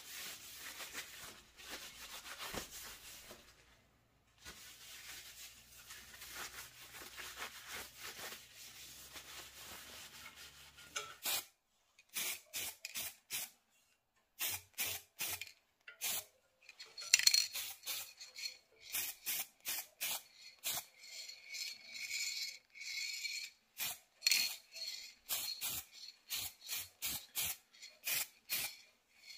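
A paper towel rubbing over a welded metal exhaust pipe, wiping it clean, for the first eleven seconds or so. Then short hissing bursts of spray, about one or two a second, as heat-resistant varnish is sprayed onto the pipe.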